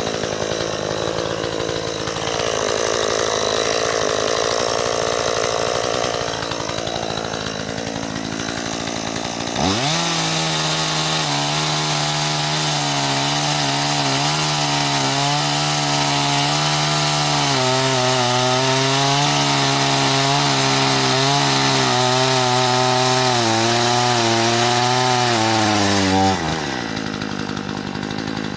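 Chainsaw cutting a fallen branch. About ten seconds in, the saw starts running at high speed, its pitch sagging a little as it works, then it cuts off sharply near the end.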